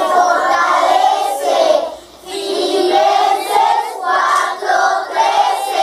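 A group of children singing together in unison, with a brief break about two seconds in.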